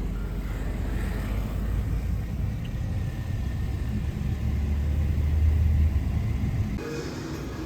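Steady low rumble of a moving vehicle, loudest a little past the middle and cutting off abruptly near the end.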